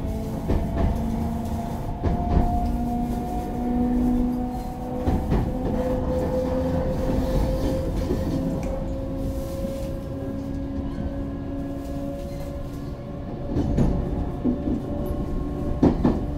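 Running sound inside a JR West 223-0 series electric train with a Toshiba GTO inverter: the traction motor whine rises slowly in pitch as the train gathers speed, over a steady wheel-on-rail rumble. A few sharp knocks come near the end.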